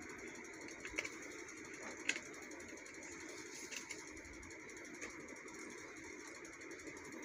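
A screwdriver working a screw into the plastic end plate of a laser toner cartridge: a few sharp small clicks and taps, the loudest about two seconds in, over a steady low background hum.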